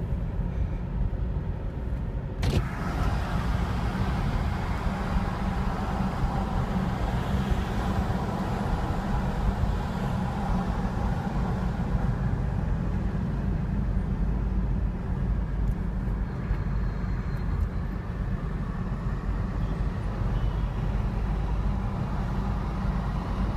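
Steady low rumble of engine and road noise heard from inside a moving road vehicle, with a single sharp click about two and a half seconds in.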